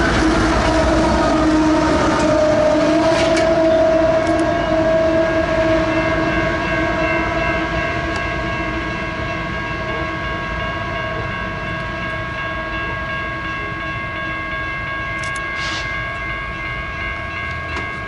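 BNSF diesel locomotives rolling past and fading away, with a droning, slightly wavering engine tone. From about six seconds in, the grade crossing's warning bell rings steadily.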